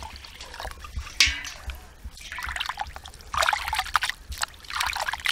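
Water poured from a steel bowl into a steel bowl of raw chicken pieces, then hands sloshing and rubbing the chicken in the water to wash it, with bursts of splashing in the second half.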